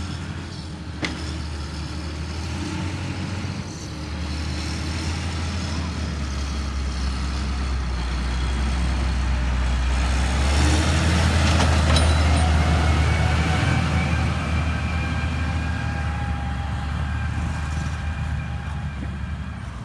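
Diesel engine of heavy earthmoving machinery running steadily, growing louder toward the middle and easing off near the end, with a sharp click about a second in.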